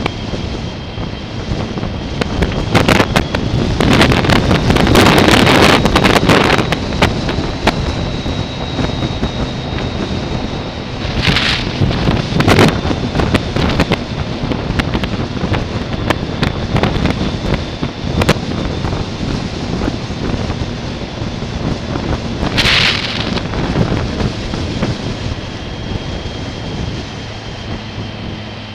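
Motorcycle on the move: wind buffeting the microphone over the steady running of the engine, with stronger gusts around four to seven seconds in and a few brief sharp rushes later.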